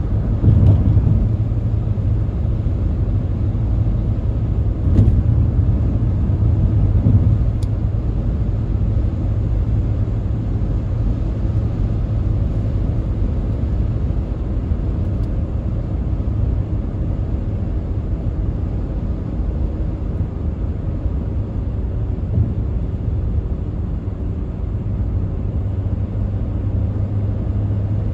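Car driving at highway speed: a steady low drone of tyre and engine noise, with a couple of faint clicks.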